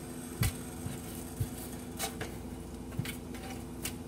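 Raw chicken wing pieces being turned over by hand on a metal sheet pan, giving a few scattered light taps and soft slaps against the pan, over a steady low hum.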